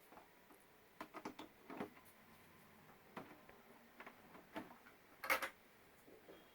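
Scattered faint clicks and taps of hands handling the parts of an opened LED TV panel, with a louder double click a little after five seconds in.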